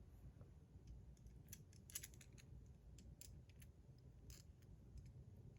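Faint, scattered small clicks and ticks from handling a Damascus steel fidget spinner while its buttons are fitted back on, about eight sharp ticks bunched between one and four and a half seconds in.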